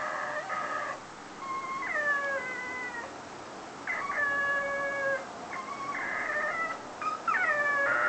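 Whippet howling and whining while left alone in the house: a string of about five drawn-out, high calls with short gaps, several sliding down in pitch.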